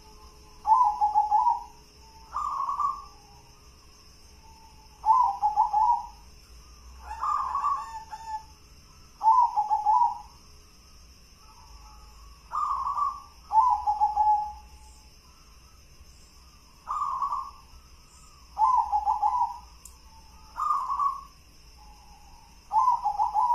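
Local zebra dove (perkutut) cooing in the gendolo sabdo song style: about a dozen short, rolling coos, each under a second, spaced one to three seconds apart.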